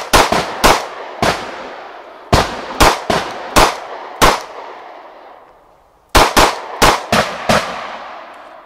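Glock pistol firing 9mm rounds in three quick strings of about five or six shots each, every shot echoing away after it.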